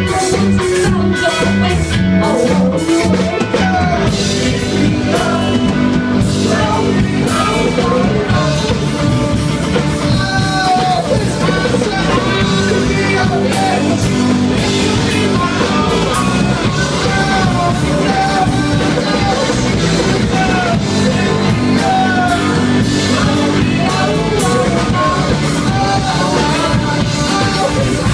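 A live rock band playing: a woman singing lead over electric guitars and a drum kit.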